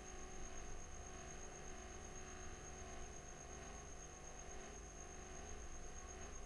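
Faint steady electrical hum and hiss with a thin, steady high-pitched whine; no distinct stirring or bubbling stands out.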